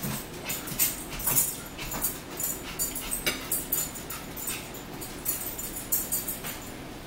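A dog panting in short, quick breaths, about two or three a second.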